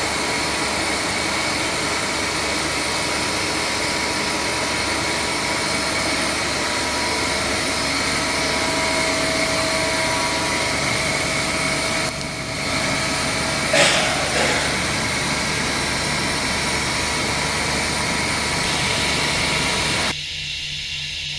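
Mazak Variaxis 630-5X II 5-axis machining center running: a steady mechanical whir with several steady whining tones. A short sharp sound with a falling pitch comes about two-thirds through. Near the end the mid-range drops away, leaving a higher hiss and a low pulsing hum.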